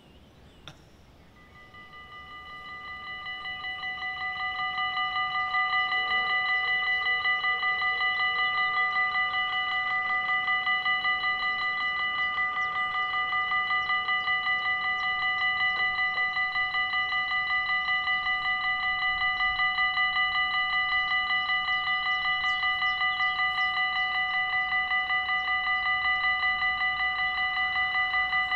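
Dutch level crossing warning bell ringing in rapid strokes, signalling an approaching train. It starts about a second in, swells in loudness over the next few seconds, then rings steadily while the red lights flash and the barriers lower.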